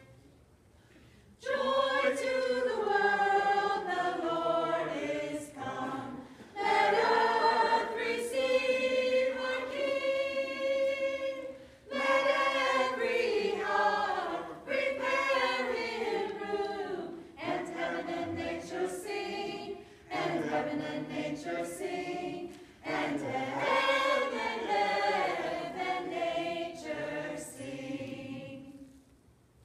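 Small choir of carolers singing a Christmas carol in phrases, with short pauses for breath between them. The singing starts about a second and a half in and dies away near the end.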